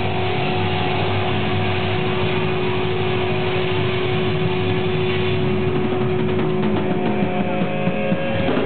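Live rock band playing loud, with distorted electric guitar, bass and drums and a long held note that stops near the end, when a few loud drum hits come in.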